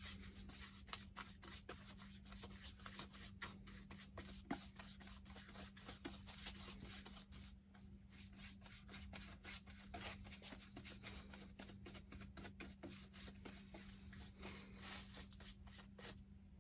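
Paintbrush scrubbing a black coating onto a wooden seat board: quick, faint bristly strokes, several a second, stopping just before the end. A steady low hum runs underneath.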